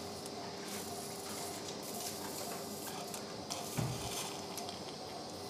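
Operating-room sounds during surgery: small clinks of metal surgical instruments over a steady hum and hiss from the equipment, with one dull thump about four seconds in.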